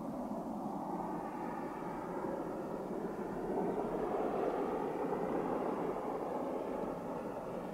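Rolls-Royce Cullinan prototype's twin-turbo V12 engine running as the SUV drives across snow, heard from a distance; the sound swells a little about halfway through.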